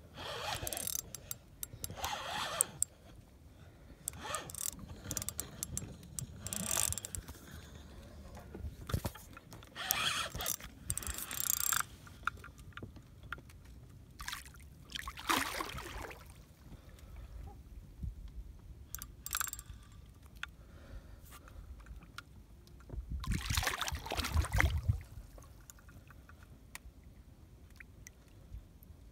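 Fishing reel and tackle being worked in irregular bursts of scraping and clicking while a large wels catfish is held on the line, with a longer, louder rumbling burst about 23 seconds in.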